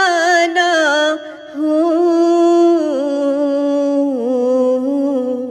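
A woman singing an Urdu naat, drawing out long held notes that bend slowly in pitch, with a short break for breath about a second and a half in.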